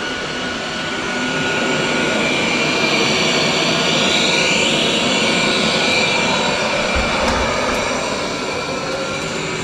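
Roborock S8 robot vacuum running while it cleans: a steady whirring suction-fan noise with a thin high whine over it.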